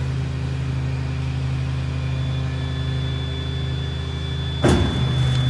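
Engine of a Dongfeng refuse compactor truck running steadily to drive the hydraulic packer plate through its compaction stroke. A faint high whine joins about halfway, and a sharp clunk from the mechanism comes near the end.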